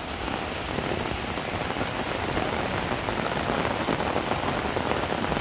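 Rain falling steadily on a paved road, a constant hiss that grows a little louder toward the end.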